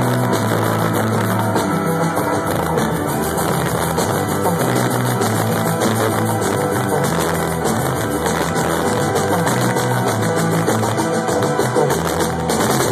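Live band playing instrumental electronic rock: a bass line stepping between notes over a steady drum beat, with guitar and keyboards.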